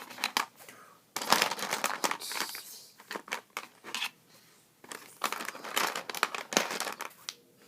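Crinkling and rustling with many small clicks, in two spells, as the small plastic screws and nuts of a toy tool set are handled.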